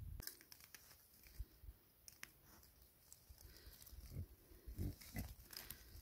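Pigs grunting softly, several short low grunts in the second half, with faint crackling and rustling of straw.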